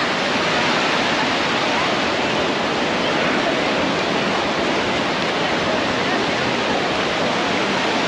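Steady rushing wash of shallow ocean surf, small waves breaking and running in over the sand.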